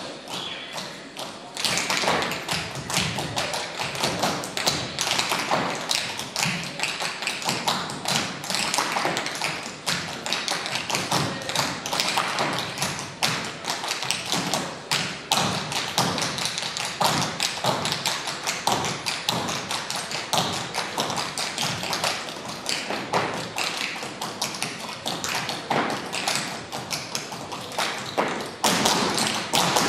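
Several dancers' tap shoes striking a wooden stage floor in quick, dense rhythmic taps and clicks with occasional heavier thuds, starting in earnest about a second and a half in.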